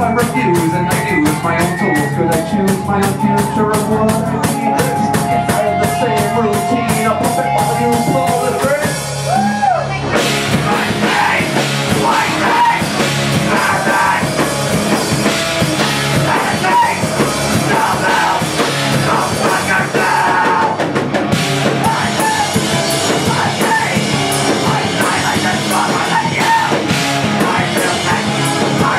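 Live rock band playing: drum kit, electric guitar, bass and keyboards with a lead singer. For about the first ten seconds a steady, even cymbal beat runs under held instrument notes; then the full band and the vocal come in.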